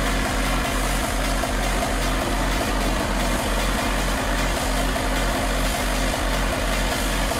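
Trial truck's diesel engine running at steady low revs as the truck crawls slowly down a steep muddy slope.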